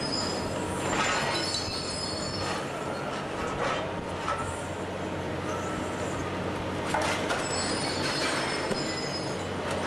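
Long-reach demolition excavator crushing the concrete top of a building with its hydraulic jaws: the diesel engine runs steadily under load while concrete cracks and breaks several times. High squeals come near the start and again near the end.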